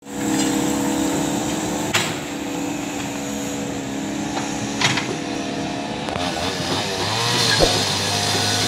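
Komatsu hydraulic excavator's diesel engine running under load as it digs out a tree, with two sharp knocks about two and five seconds in. The engine note wavers and shifts after about six seconds.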